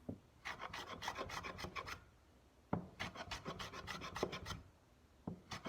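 Low-angle block plane shaving end grain in quick downward strokes: two runs of rapid, rasping cuts with a single knock between them, about two and a half seconds in.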